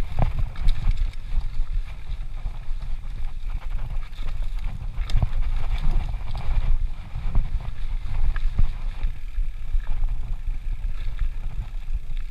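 Mountain bike running fast down a rocky dirt trail: a steady low rumble of tyres and wind buffeting the microphone, with scattered clicks and knocks as the bike rattles over rocks and roots.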